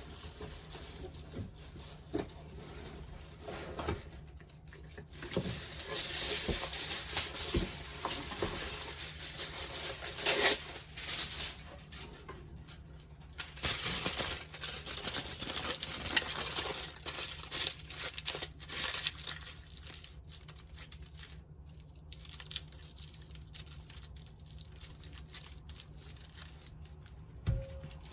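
Irregular crinkling and rustling handling sounds with scattered light clicks and knocks, busiest in the first half.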